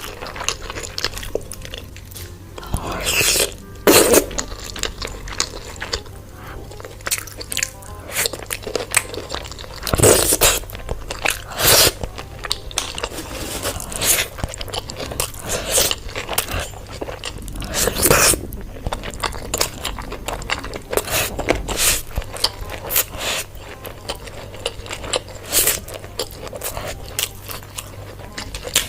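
Close-miked eating: irregular crunching bites and chewing, loudest in a few big bites.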